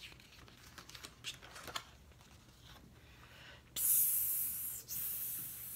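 Faint paper rustles and small clicks as a picture-book page is turned, then a person hissing "psss" in imitation of a snake: two long hisses starting nearly four seconds in, the first the louder.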